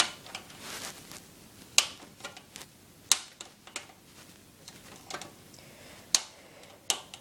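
Sharp clicks and taps, about six at uneven intervals, as pliers work a screw with a worn thread into a computer case.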